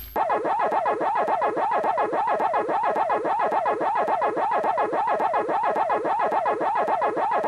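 Pac-Man arcade-game sound effect: an electronic warble that sweeps rapidly up and down in pitch, pulsing about five times a second.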